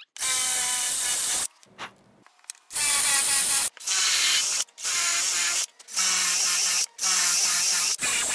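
Cordless drill with a 3/8-inch brad point bit drilling dowel holes through a guide block into wood, run in about six short bursts of roughly a second each with brief pauses between. The motor whines at a steady pitch in each burst.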